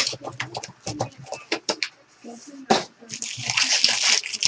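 Foil trading-card pack wrappers being torn open and crumpled by hand: a run of crackling and crinkling with sharp clicks, easing off briefly about halfway through and then crackling steadily again near the end.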